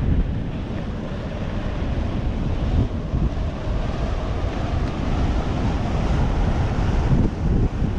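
Wind buffeting the microphone of a camera carried by a moving skier, a loud, ragged rumble, over the hiss of skis sliding on snow.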